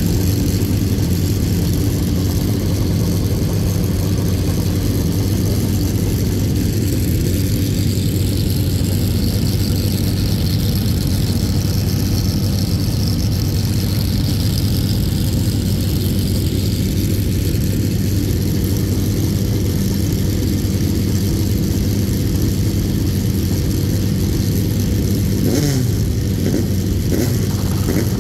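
A race car engine idling steadily, with a few quick rising revs near the end.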